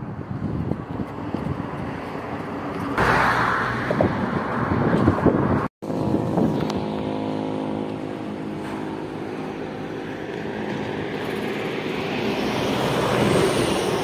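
Road traffic passing: a vehicle goes by about three seconds in, and after a brief dropout a vehicle engine runs with a steady pitch, growing louder again near the end. Wind gusts on the microphone in the first few seconds.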